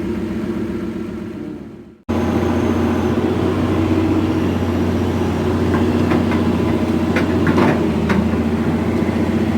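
An engine idling steadily. It fades out about two seconds in, then cuts back in abruptly and keeps idling evenly, with a few light clicks near the end.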